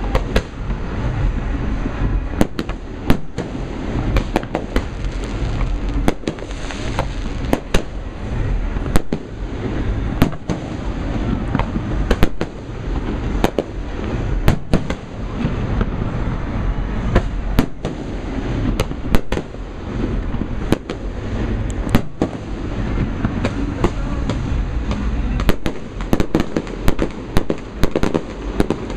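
Fireworks display: a steady barrage of sharp shell bursts and bangs, several at a time and at irregular intervals, over a continuous low rumble of echoing booms.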